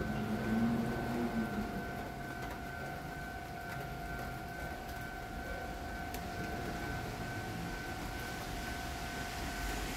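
Level crossing warning alarm sounding a steady, unbroken high tone.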